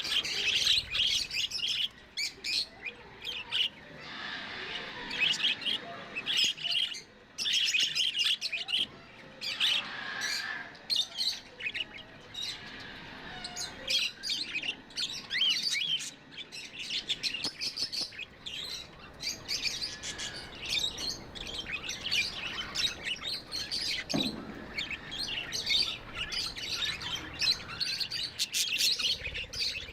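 Budgies chirping and warbling without pause, a dense stream of short, high chirps from several birds.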